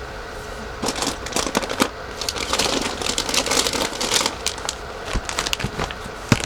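Plastic food packaging being crinkled and handled, a dense run of irregular crackles.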